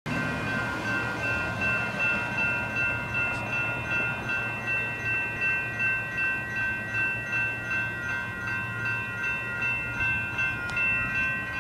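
Railroad crossing signal bells ringing steadily, with evenly repeated strikes, over a low hum.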